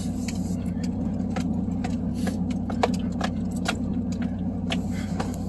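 Pickup truck heard from inside the cab, its engine running at low revs as it creeps over a rough, snowy logging road, with frequent sharp clicks and rattles from the cab.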